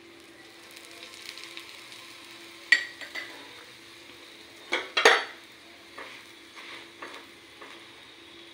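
Oil sizzling under a paratha on a hot iron tawa, while a steel spoon spreading the oil scrapes and clinks against the pan. The sharpest clinks come about three seconds in and again at five seconds.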